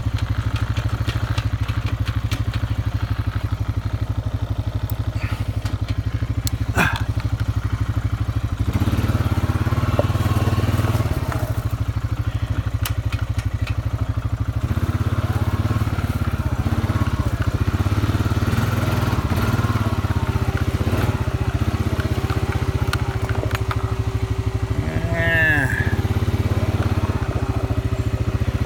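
Honda ATV engine running steadily while the quad creeps down a steep trail, with brush and branches scraping and squeaking against the bodywork from about a third of the way in, loudest near the end.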